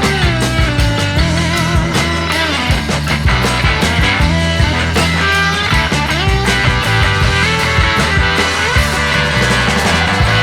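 Background rock music with electric guitar over bass and drums.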